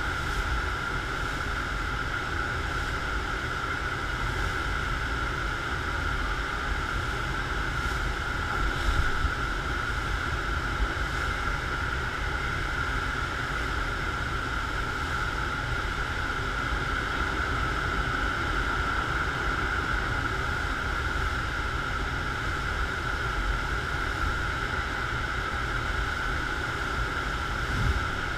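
Steady rush of water from a FlowRider sheet-wave machine, a thin sheet of pumped water pouring up over the padded ride surface without letting up.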